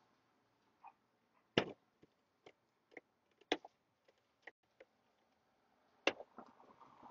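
Clicks and knocks of a plastic Makita tool case being packed, closed and fastened, with three louder knocks about two seconds apart and fainter ticks between.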